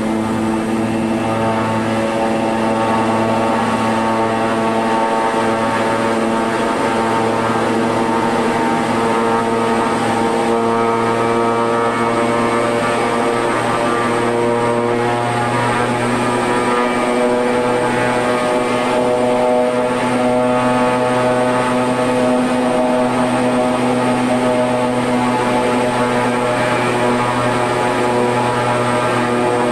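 Twin Pratt & Whitney PT6A-65AR turboprop engines of a Shorts SD360 running on the ground, heard inside the cockpit: a steady drone with several pitched tones. One engine is set for its flight idle torque check, its five-bladed propeller brought up to about 1450 rpm while the other stays near 970 rpm.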